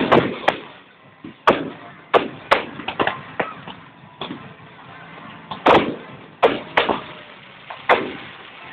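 Fireworks exploding: about ten sharp bangs at irregular intervals, roughly one a second, each with a short echoing tail.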